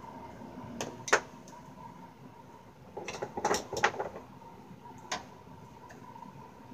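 Clicks and knocks from a small Yamaha guitar amp and its parts being handled on a wooden workbench during a teardown: two sharp clicks about a second in, a cluster of knocks around three to four seconds, and one more click near five seconds.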